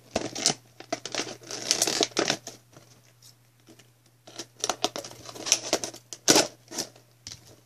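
Scissors cutting into stiff, sharp plastic packaging, with the plastic crinkling and crackling in irregular bursts of snips and clicks. It goes quieter about halfway through, then picks up again with louder snips and a sharp click near the end.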